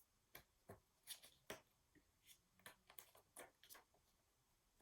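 Faint handling noises from a paper picture book: about a dozen soft, scattered clicks and rustles over near silence, as between pages of a read-aloud.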